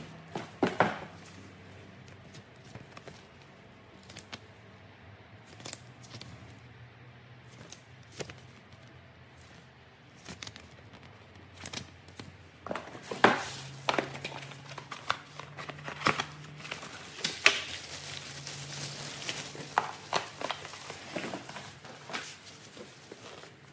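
Foam packing inserts and a cardboard box being handled while unpacking: scattered knocks, scrapes and rustles. Sparse for several seconds in the middle, then busier in the second half.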